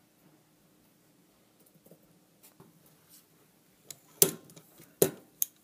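Quiet at first, then a few sharp metallic clinks and knocks about four and five seconds in: metal tongs gripping and knocking against the improvised tin-can crucible of molten solder.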